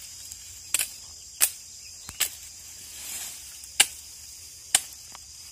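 Machete blows striking thorny jurema branches: about five sharp, irregular chops. A steady high insect chirr runs underneath.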